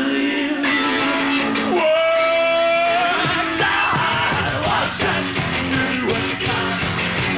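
Live rock band playing with electric guitar, and a man singing and shouting into the microphone.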